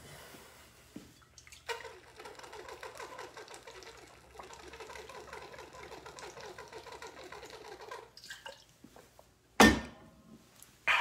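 A small machine runs with a steady, fast-pulsing buzz for about six seconds. About a second and a half after it stops there is a single loud bump, close to the microphone.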